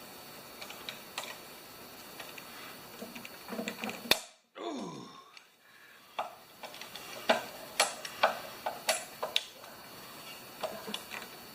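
Hand tools working a stuck bolt on a lawn mower engine: irregular metal clicks and clinks, with a sharper snap about four seconds in and a cluster of clinks in the second half.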